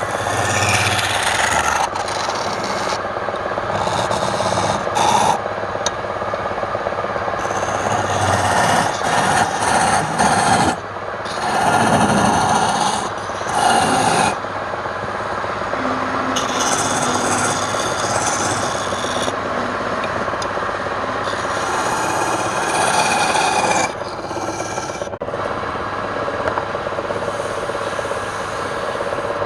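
Wood being rasped and sanded: a continuous scraping hiss that changes abruptly every few seconds as the tool and stroke change.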